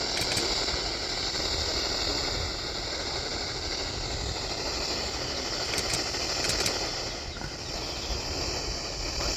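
Steady static hiss from a weather radio on a weak NOAA Weather Radio signal, with no voice and no alert tone.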